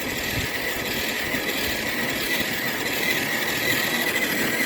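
Scale RC crawler truck driving through deep snow, its electric motor and gears giving a steady whine that wavers slightly with throttle.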